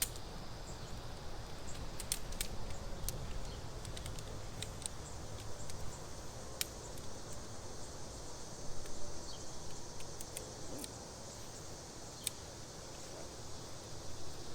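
Steady insect chirring outdoors, with scattered sharp light clicks and rustles as the tent's shock-corded aluminium poles are handled and fitted.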